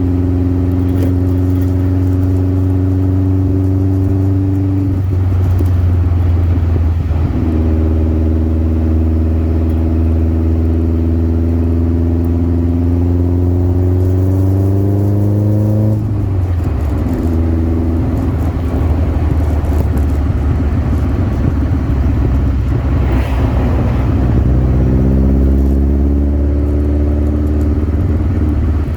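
Birkin Seven sports car engine pulling through the gears while driving. The engine note climbs steadily in pitch, breaks off for gear changes about five and sixteen seconds in, and rises again near the end, over a strong deep drone.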